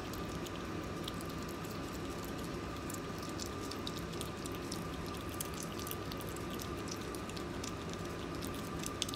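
Asian small-clawed otter eating fish: faint wet mouth clicks and smacks, coming thicker from about three seconds in, over a steady room hum with a thin high tone.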